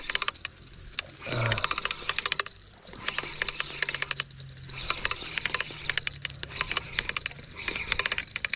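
Spinning reel being cranked to bring in a hooked fish, its gears giving a rapid clicking rattle in runs with short pauses between turns.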